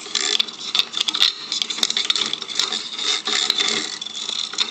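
Notched plastic zip tie scraping and clicking against a sink's chrome pop-up drain stopper as it is pushed and worked down into a clogged drain to hook hair. It makes a rapid, irregular run of ticks and rasps.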